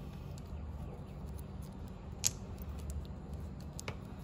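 Light clicks and taps of a metal piercing valve being handled and set against a copper refrigerator line, with one sharper click about two seconds in, over a low steady hum.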